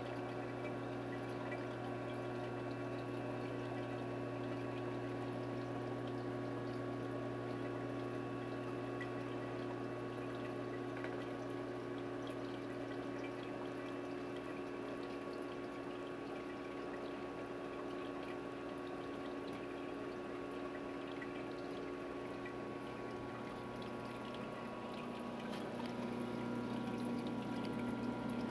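Biocube 29 reef aquarium running: water trickling and pouring through the tank's filtration over the steady hum of its pump. The hum gets a little louder near the end.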